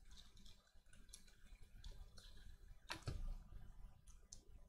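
Faint, scattered clicks and ticks of trading cards and foil pack wrappers being handled on a desk, with one sharper click about three seconds in.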